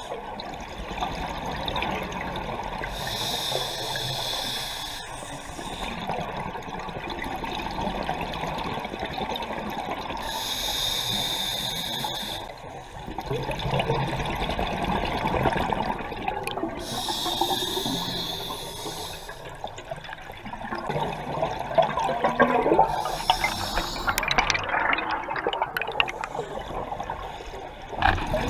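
Scuba regulator breathing heard underwater: a hissing inhalation roughly every six to seven seconds, each followed by exhaled bubbles gurgling and rumbling past.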